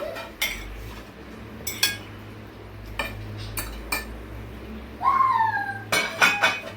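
Metal utensils clinking and tapping against serving dishes in several separate knocks, with a short falling squeal about five seconds in.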